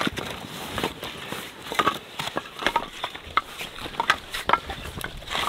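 Firewood being knocked down into smaller pieces for kindling: an irregular run of sharp wooden knocks and clatter, a few a second, some with a brief ring.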